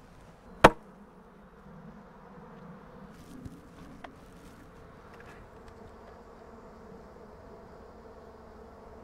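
Honey bees buzzing steadily around an open hive. One sharp knock comes about a second in, and a couple of lighter clicks follow a few seconds later as hive parts are handled.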